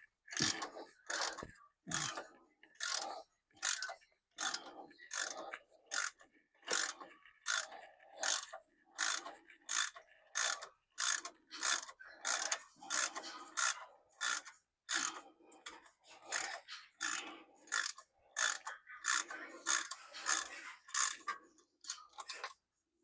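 Hand ratchet wrench clicking in a steady run of short bursts, roughly one to two swings a second, as a hub-assembly mounting bolt is backed out by hand.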